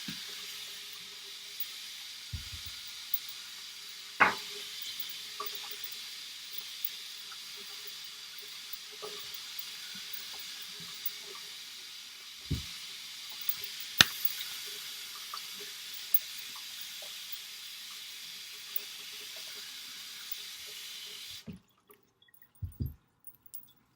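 Kitchen tap running steadily into the sink while potatoes are washed under it, with a few sharp knocks. The water is shut off abruptly near the end, followed by a couple of thuds.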